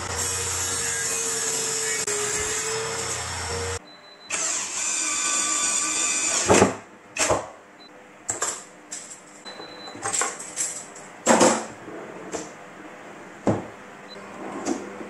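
A circular saw in a table is ripping a thin strip off a woodgrain laminated board, running steadily under load; it cuts off abruptly about four seconds in. A second short steady power-tool run follows. Then come a series of separate knocks and clicks as a drawer front is clamped and fitted to a drawer.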